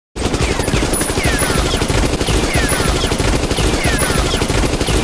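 Sustained rapid automatic gunfire, the shots packed so close together that they run into one continuous rattle.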